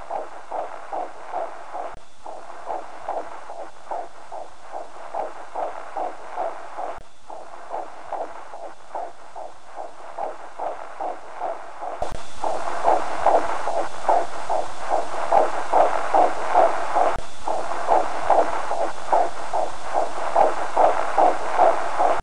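Fetal heartbeat picked up by a handheld fetal Doppler: fast, even pulses at about two and a half a second. The sound gets clearly louder about halfway through.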